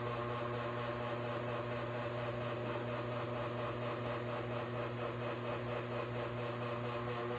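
A steady machine hum: a low drone with several constant higher tones, unchanging in pitch and level.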